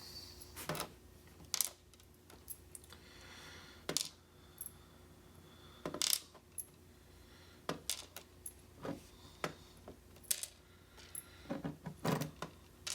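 Small metal lock pins and parts clicking and clinking on a hard surface as a pin-tumbler lock is taken apart: a dozen or so separate sharp ticks at uneven intervals, some with a brief metallic ring.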